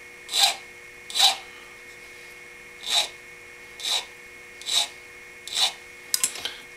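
Small hand file rasping slowly across the freshly cut end of a straight-razor scale pin, dressing it smooth before it is peened. Six separate strokes, with a pause of over a second after the second, and a few light clicks near the end.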